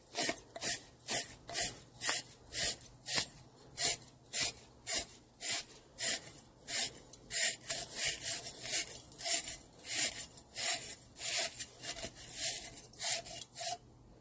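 A wire copper-fitting brush scrubbing up and down inside a Honda CL70's twist-throttle grip tube, in regular scraping strokes about two a second. It is scouring out the surface rust that made the throttle stick. The strokes stop just before the end.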